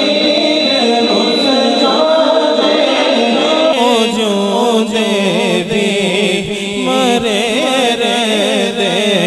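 A male naat reciter singing a devotional Urdu naat into a microphone. He holds long, steady notes at first, then from about four seconds in sings wavering, heavily ornamented phrases.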